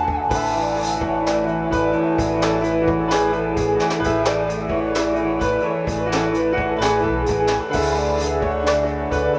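Instrumental band music: a drum kit keeps a steady beat under sustained chords and a bass line.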